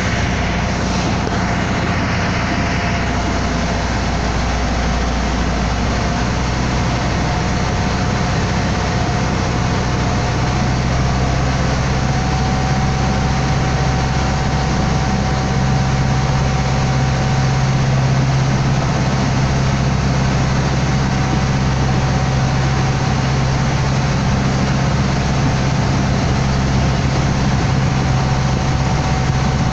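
A water taxi's engine running steadily under way, heard on board: a constant low hum with a steady rush of noise over it.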